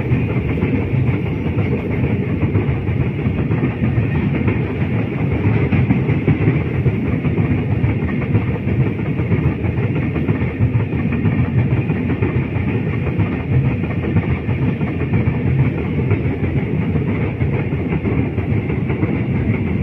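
Freight train of bulk cement tank wagons rolling past close by: a loud, steady rumble of steel wheels on the rails with rhythmic wheel clatter.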